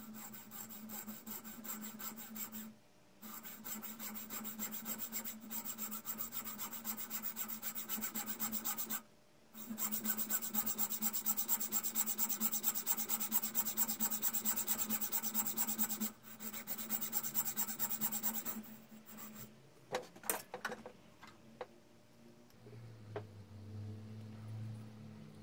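Thin hand saw blade sawing quickly back and forth through the protruding end of a wooden hammer handle, trimming it flush with the head. The strokes are fast and even, pause briefly twice, and stop about three-quarters of the way through, followed by a few light clicks.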